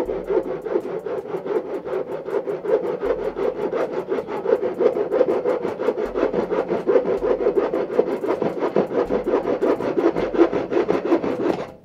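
Hand saw cutting across a wooden board with fast, even back-and-forth strokes. The sawing stops abruptly near the end.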